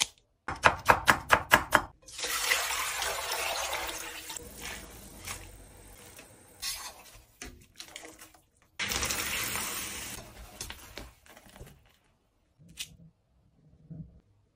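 Kitchen scissors snipping about eight times in quick succession as they cut the heads off raw shrimp. Then comes running, splashing water in two long spells, with a few faint clicks near the end.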